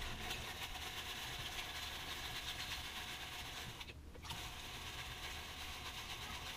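Water sloshing and washing around in a plastic gold pan as paydirt is panned, a soft, steady hiss with one brief break a little past halfway.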